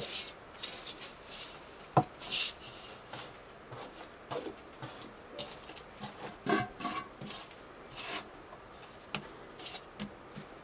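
Hands handling bread dough on a floured wooden board: rubbing and scraping with scattered soft knocks, and a sharp knock about two seconds in. Around the middle, a metal bowl scrapes and rings briefly against the board as the dough is tipped out.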